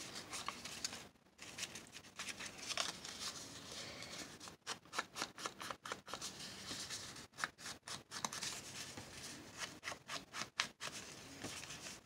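Small ink pad rubbed and dabbed along the edges of a paper page to distress them, giving a run of short, dry scuffing strokes on paper that come a few a second from about halfway in. Paper is handled and shifted before that.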